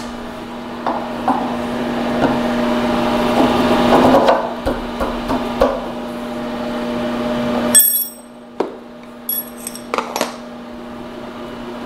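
Steady hum of a milling machine with a rushing noise over it and a few light knocks; about eight seconds in the rushing noise cuts off sharply, and several separate metal clinks and knocks follow as the machined copper vise jaw is handled and taken out of the steel vise.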